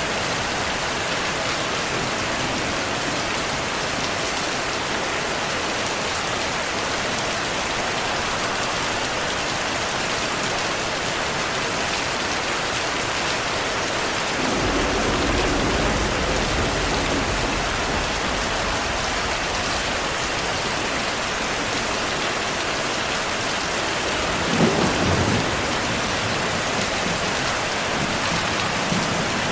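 Heavy rain falling steadily, with thunder: a low rumble rolls in about halfway through and lasts a couple of seconds, and a shorter, louder clap comes near the end.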